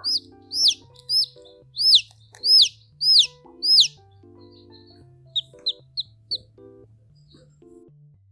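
Chick peeping: a run of about seven loud, high, arched peeps about 0.6 s apart, then, after a short pause, four shorter, quieter peeps. Faint music with a steady beat plays underneath.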